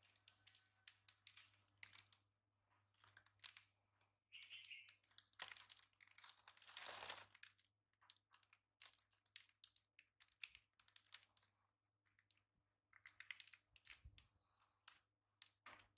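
Plastic snack packet crinkling in short, irregular crackles as it is handled and tugged at, with a denser rustle about six to seven seconds in.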